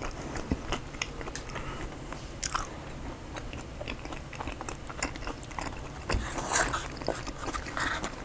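Close-up chewing of a mouthful of a lettuce-based bowl with avocado and cheese, full of many small wet mouth clicks. A fork scrapes the bowl near the end.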